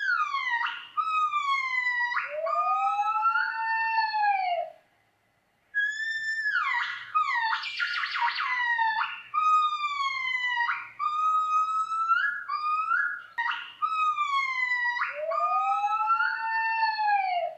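Gibbon calling: a series of pitched whoops gliding up and down, some long arching hoots, with a short pause about five seconds in and a rapid rattling stretch around eight seconds in.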